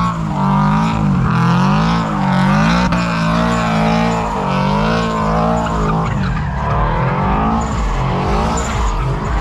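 Car doing a burnout: the engine is held high in the revs, its pitch swinging up and down about once a second as the throttle is worked, over the hiss and squeal of spinning rear tyres. After about six seconds the rev swings settle into a steadier run.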